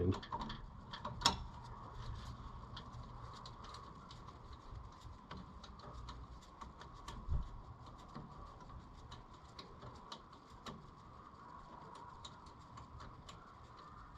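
Faint, irregular small metallic clicks and a couple of knocks from a wrench working the AN oil-line fittings loose on a turbocharger, over a steady faint hum.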